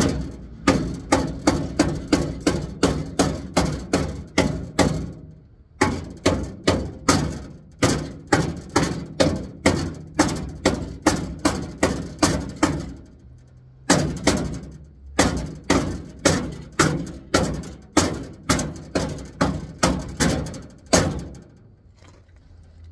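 Hammer blows on metal, about three a second, in three runs with short pauses between them, each blow ringing briefly.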